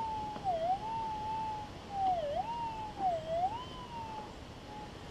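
Gold detector's target signal over a deep target: a continuous hum that dips in pitch and swings back up three times as the coil is swept over the spot. It fades out near the end.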